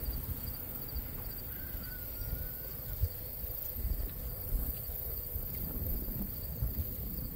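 Outdoor pasture ambience: a rough low rumble of wind on the microphone, with insects chirping faintly and a short, faint bird call about two seconds in.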